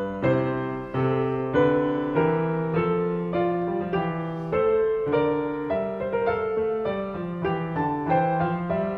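Piano music: notes and chords struck at an even, unhurried pace, each ringing on and fading before the next.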